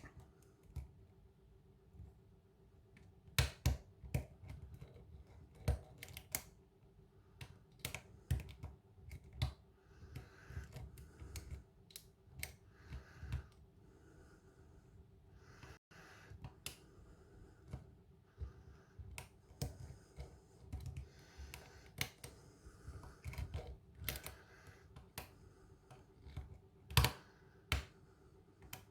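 Lock pick and tension wrench working the pins of a KIK cylinder lock fitted with ammo-style security pins: irregular light metallic clicks and taps, with a few sharper clicks.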